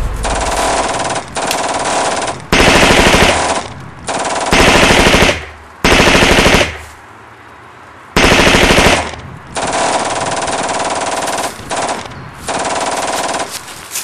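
Rapid automatic rifle fire in several long bursts, the loudest coming between about two and a half and nine seconds in, with a short lull near seven seconds.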